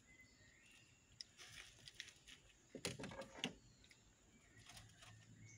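Near silence, with faint small clicks and rustles of hands handling a freshly caught giant freshwater prawn and the fishing line while taking it off the hook, a little louder about three seconds in.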